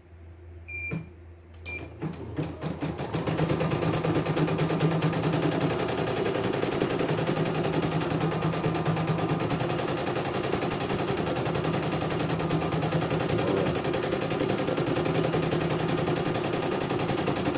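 CNY E900 computerised embroidery machine: two short beeps from its control-panel keys, then the needle drive starts about two seconds in and stitches a design at speed with a rapid, steady clatter.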